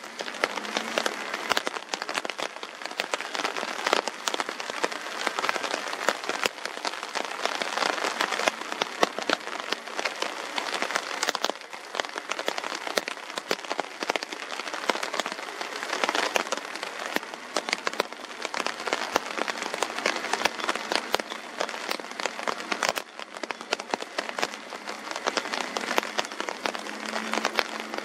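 Steady rain, with a dense run of sharp drop taps on a surface close by.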